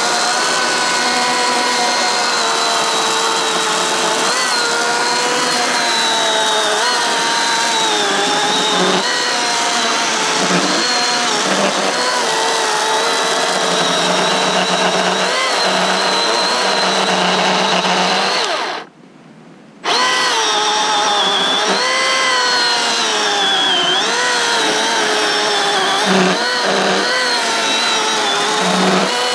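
Milwaukee M18 Fuel cordless brushless chainsaw running, its high motor-and-chain whine dipping in pitch again and again as the chain bites into eucalyptus logs. About two-thirds of the way through, the saw stops for about a second, then starts again.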